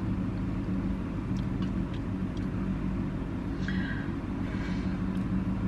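Steady low hum of an idling car engine, with a few faint clicks of chewing and the fork on top.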